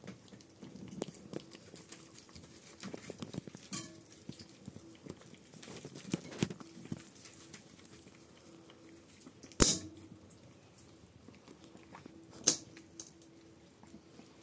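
32-day-old Shiba Inu puppies licking and chewing at a whole raw fish: soft wet smacking and small irregular clicks, with two louder sharp clicks in the second half.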